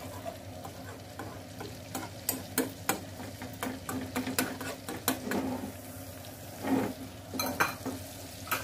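Wire whisk stirring butter and flour into a roux in a small pan on the stove, its wires clicking and scraping against the pan, with a faint sizzle from the hot butter. The clicking thins out in the second half as the whisking stops.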